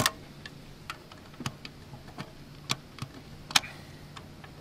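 Irregular sharp plastic clicks and taps as 12-gauge shotgun shells are pressed into and shifted in an RIA VR80 box magazine. The loudest click comes right at the start, another strong one about three and a half seconds in, with lighter ticks between.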